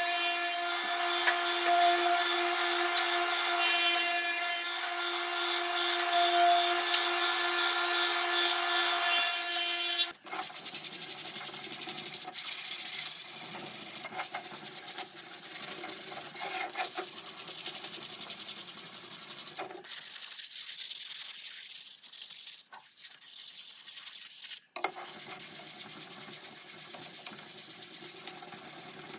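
Electric woodworking power tool running on wood with a steady whine for about ten seconds, then a quieter, rougher rubbing and scraping of wood being worked, broken by short pauses, and the motor whine again near the end.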